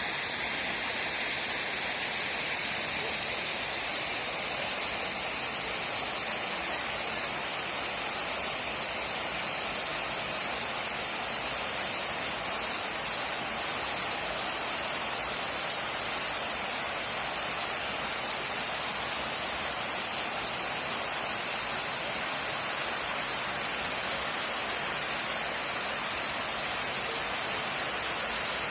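Waterfall's falling water rushing in a steady, even hiss.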